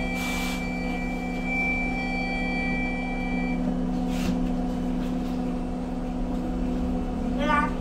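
Cabin of a Volvo B5LH hybrid bus: a steady low hum throughout, with a high steady whine that stops about three and a half seconds in. Two short hisses of air come about half a second in and again about four seconds in.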